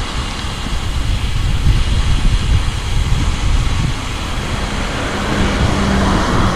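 Steady, gusting low rumble of wind buffeting the microphone while riding a bicycle at speed, with road noise underneath and a faint steady hum joining near the end.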